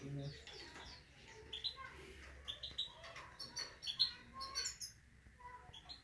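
Small pet finch giving short, high chirps and twitters, scattered and fairly faint.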